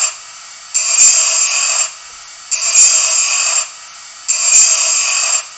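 Bench-grinder work sound from the sound decoder of a Märklin H0 model Zweiwege-Unimog, played through the model's small loudspeaker. A grinding noise comes in bursts of about a second, three of them, with short pauses of faint hiss between.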